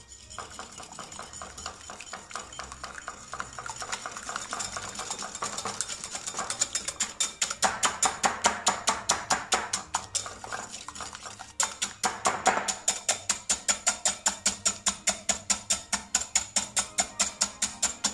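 Wire whisk beating raw egg yolks in a glass bowl, the wires clicking against the glass in a fast, even rhythm of about five strokes a second, louder from about seven seconds in.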